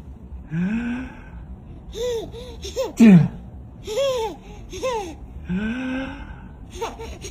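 Baby laughing in short, high bursts in answer to an adult's playful low, rising voiced 'D' sound, made twice.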